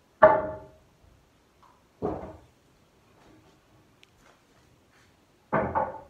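Three sharp knocks, each with a brief ringing decay: one right at the start, one about two seconds in, and a double knock near the end.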